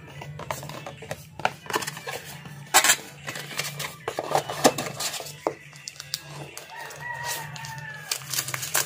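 Cardboard and paper packaging rustling and crinkling, with sharp clicks and taps, as a smartphone box is opened and the plastic-wrapped phone is lifted out. Near the end a drawn-out call rises then falls behind the handling.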